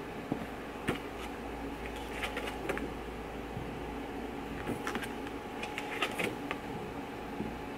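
Laminated paper posters being handled and shuffled, giving short crinkly crackles and taps now and then, over a steady room hum.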